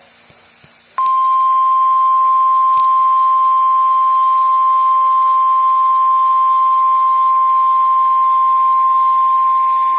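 NOAA Weather Radio 1050 Hz warning alarm tone: a single steady, loud, high tone that starts abruptly about a second in and holds for about nine seconds. It signals that a warning message follows, here a severe thunderstorm warning.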